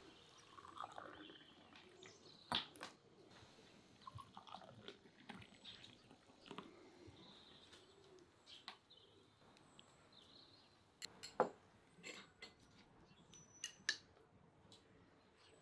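Quiet tableware sounds: tea poured into a glass tea cup, then a few sharp clinks of a spoon and glasses against glass dishes.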